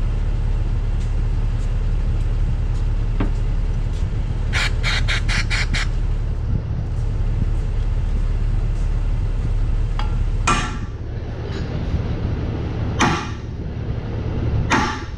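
Hand-tool work on metal engine parts over a steady low drone. A quick run of about six sharp clicks comes about five seconds in, and three heavier knocks follow near the end, after the drone drops away.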